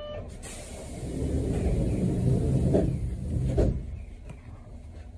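Streetcar's compressed-air system hissing over a low rumble for about three seconds, ending in two thumps about a second apart.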